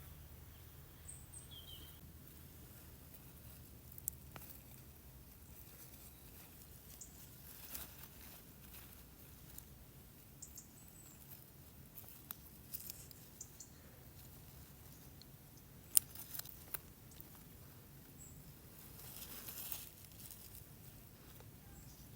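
Quiet rural outdoor ambience: a few faint, short, high bird chirps, with scattered small clicks and taps, one sharper click about sixteen seconds in and a brief rustle near the end.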